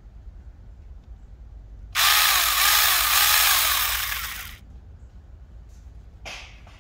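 Saker 20 V cordless mini chainsaw triggered about two seconds in and run free for a couple of seconds, its electric motor and chain giving a whine that wavers in pitch, then winding down. A short, much fainter burst follows near the end.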